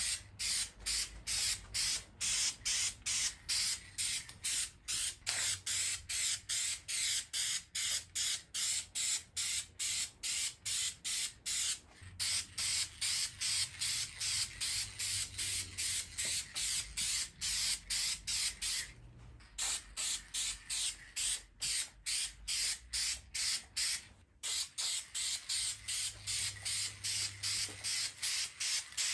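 Aerosol can of Dupli-Color Perfect Match white spray paint hissing in rapid short bursts, a few a second, with a few brief breaks, as a coat of paint goes onto a chrome badge.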